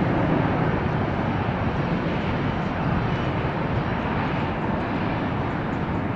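Boeing 747-400's four Rolls-Royce RB211 turbofan engines running steadily as the jet rolls along the runway, heard from a distance as an even jet rumble.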